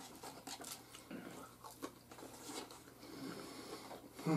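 Close chewing and crunching of baked pizza rolls, hard and dry from the oven, with scattered small clicks of teeth and fingers on the food. A brief voice sound near the end.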